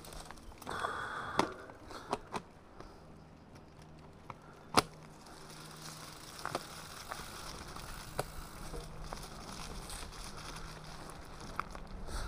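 Mountain bike rolling along a singletrack covered in dry leaves and loose stones: tyres crackling over the leaves, with scattered clicks and knocks from the bike, the sharpest near five seconds in, and a brief squeal about a second in.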